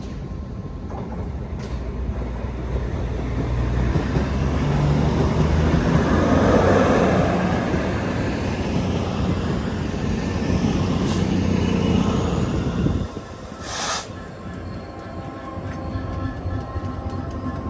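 A train passing on the main line: a loud rumble of wheels and traction that builds to a peak about a third of the way in, then cuts off abruptly about three quarters of the way through.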